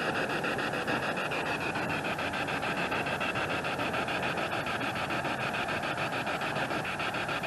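SB7 spirit box radio sweeping through stations: a steady hiss of static chopped into rapid, even pulses as it jumps from channel to channel.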